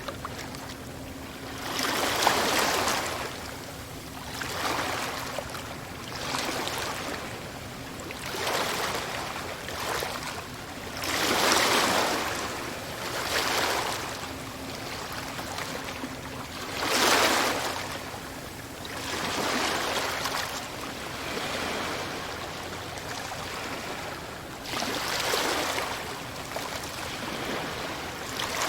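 Sea waves breaking and washing onto the shore, one surge after another every two to three seconds, each swelling up and fading back, with a few louder breakers among them.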